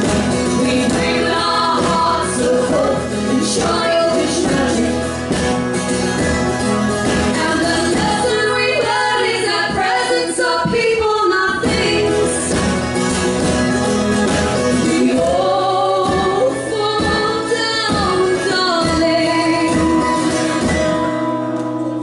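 Live folk song: two women singing in harmony over acoustic guitar and a second strummed stringed instrument. Near the end the singing stops and a held chord rings on.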